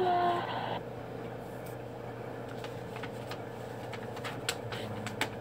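A puppy whining through a phone's small speaker, a falling whimper that cuts off under a second in as the clip ends. A steady low hum follows, with light scattered clicks of fingers tapping the phone.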